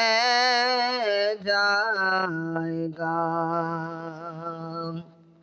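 A singer of a naat drawing out one long, wavering note on the word 'rah'. The note steps lower a little over two seconds in and fades out about five seconds in.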